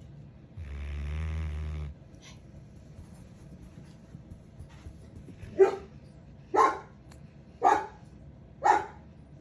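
Cane Corso puppy snoring in its sleep: one long, low, rumbling snore lasting about a second, then, after a pause, short, loud snores about once a second.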